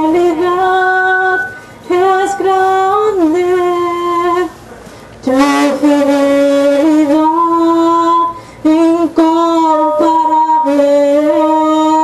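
A woman singing in Spanish, holding long steady notes in phrases, with three short breaks between phrases.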